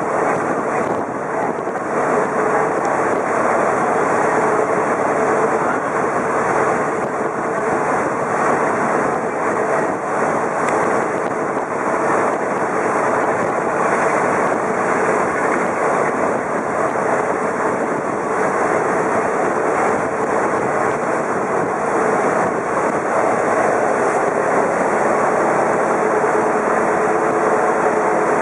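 A motorised sampan's engine running steadily, heard from on board as a loud, even drone.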